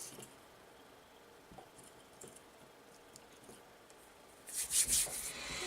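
Small hand-work noises on a tiny quadcopter frame: a few faint light clicks, then a short burst of rubbing and scraping about four and a half seconds in.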